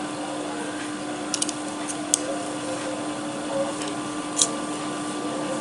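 Steady background hum with a held low tone, and a few faint clicks as a digital caliper's slide is closed down onto a steel hammer spring to measure its length.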